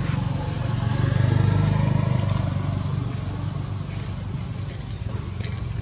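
Motor vehicle engine running, a low hum that swells about a second in and then slowly fades, as of a vehicle passing by.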